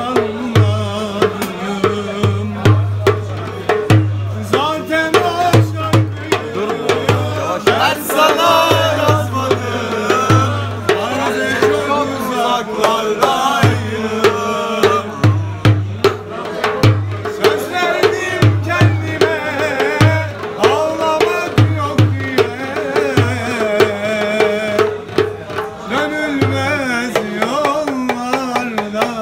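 A man singing a Turkish tavern song solo, with a hand drum beating a steady rhythm under the voice.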